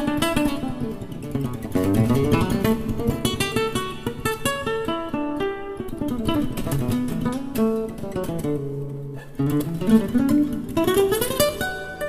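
Solo nylon-string classical guitar playing music: quick runs of plucked notes that climb and fall over sustained bass notes.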